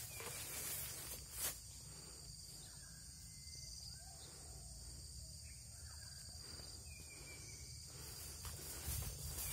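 Steady high-pitched insect chorus, with a few faint short bird-like chirps in the middle. Footsteps rustle through grass and dry leaf litter about a second and a half in and again near the end.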